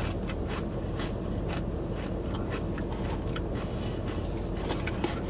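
Crunchy, chili-pepper-and-lime Takis crisps being chewed, a run of irregular short crunches.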